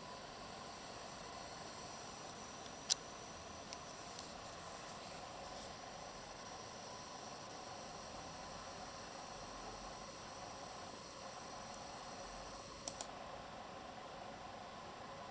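EVGA GTX 1070 OC graphics card giving off a steady high-pitched hiss under full Furmark load, which the owner suspects comes from its chokes (coil whine). A few sharp clicks come through, and after a pair of clicks about thirteen seconds in the highest part of the hiss fades.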